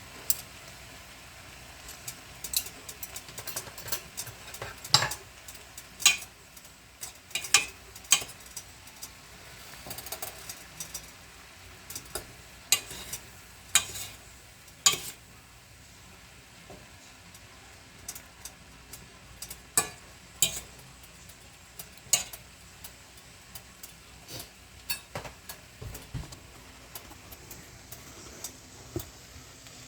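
Metal utensil clinking and scraping against a pan as pancit noodles are stirred and tossed, in irregular sharp knocks, over a faint steady sizzle.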